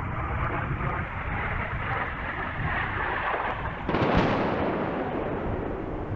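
A distant munition explosion on a bombing range: a sudden boom about four seconds in, rolling away over the next second or two, above a steady low noise.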